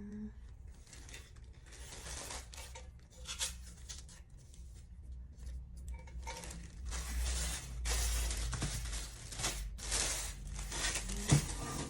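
Rustling and tearing of packaging material in a series of crinkly bursts, growing louder from about six seconds in.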